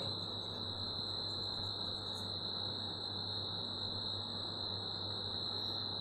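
Room tone: a steady high-pitched whine over a faint low hum and hiss.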